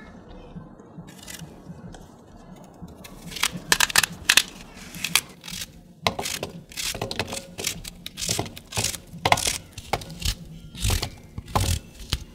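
Knife cutting through raw zucchini held in the hand, a quick run of crisp cuts and crunches with pieces dropping into a glass bowl, starting about three seconds in.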